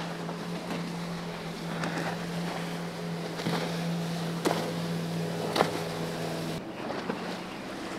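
Outboard motor of a center-console boat running at speed, a steady hum over the wash of water and wind, with a couple of sharp knocks. The engine tone cuts off about six and a half seconds in.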